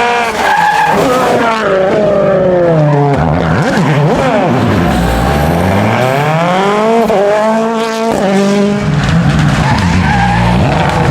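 Rally car engine revving hard, its pitch climbing and dropping with each gear change; it falls away sharply about four seconds in, then builds again through the gears.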